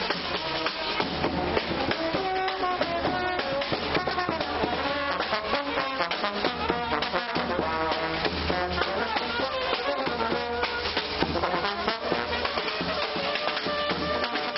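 Marching brass band playing a tune: trumpets and other horns with a tuba, over a steady bass drum beat.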